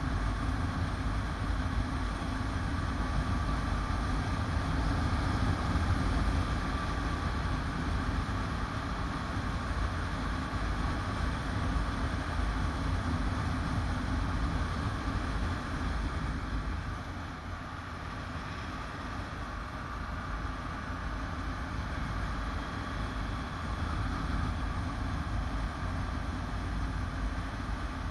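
Motorcycle under way on a road: steady engine and riding noise picked up by the bike-mounted camera, a little quieter for a few seconds about two-thirds of the way through.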